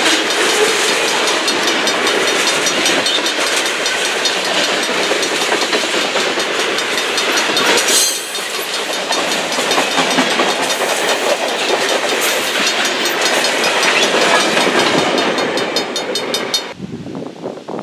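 Loaded freight cars of a passing train rolling by close up: a steady rumble and hiss of steel wheels on rail, with regular clicking as the wheels cross rail joints. The sound drops away suddenly near the end.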